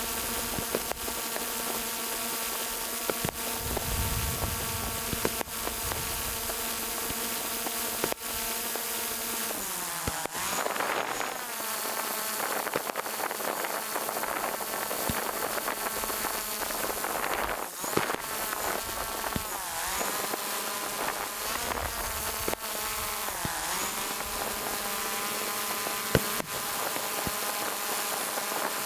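Quadcopter drone's propellers whining with a steady buzzing pitch that dips and rises again several times in the second half, as the motors change speed. A few short sharp pops are scattered through.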